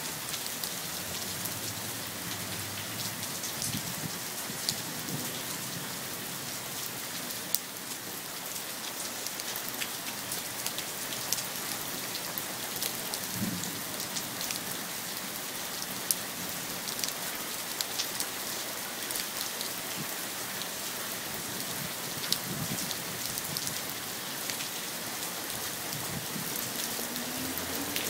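Steady rain falling on pavement and hard surfaces, with the sharp taps of individual drops landing close by scattered throughout.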